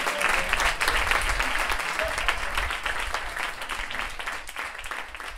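Audience applauding after a live set, the clapping dying down toward the end.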